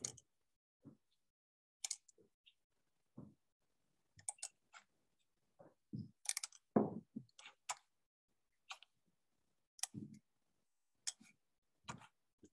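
Computer mouse and keyboard clicks with a few soft desk knocks: a dozen or so short, irregular clicks, faint, with some louder thumps.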